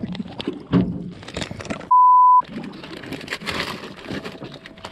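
A censor bleep: one steady, high beep about half a second long, about two seconds in, with all other sound cut out beneath it.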